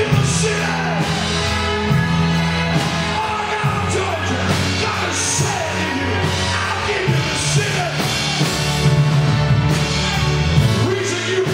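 Live church praise-band music: a drum kit with occasional cymbal crashes over sustained bass notes, with a voice singing.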